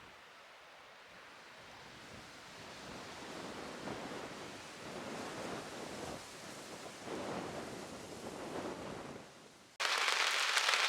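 Strong wind gusting, swelling and easing every second or two. About a second before the end it cuts abruptly to the steady hiss of rain.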